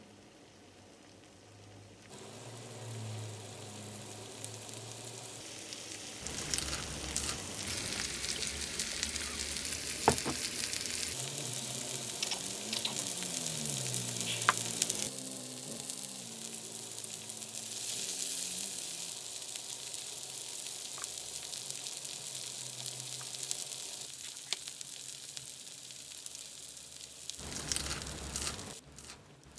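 Pork belly sizzling on a grill pan, starting about two seconds in, with a couple of sharp clicks.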